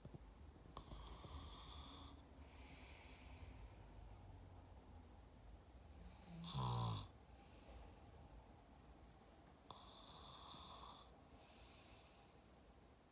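A man snoring in his sleep: quiet hissing breaths at a slow pace, with one much louder snore, low and wavering in pitch, about six and a half seconds in.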